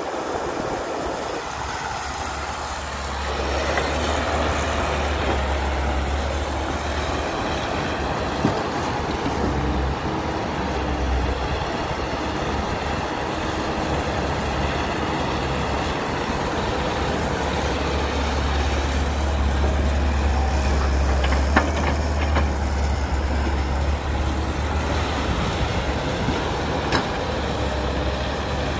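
Caterpillar 312B hydraulic excavator's diesel engine running under digging load, a steady low drone that swells as the boom and bucket work the soil, with a few sharp knocks.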